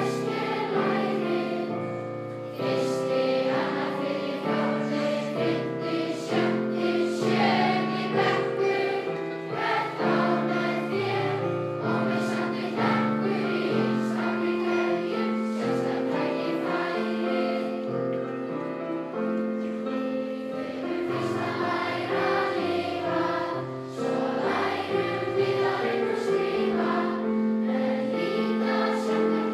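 A large crowd of schoolchildren and adults singing a song together in Icelandic, with keyboard accompaniment.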